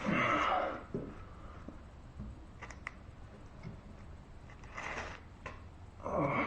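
A few light metallic clicks and taps from outboard lower-unit parts and tools being handled and fitted by hand, between short hissing bursts, one right at the start and one near the end.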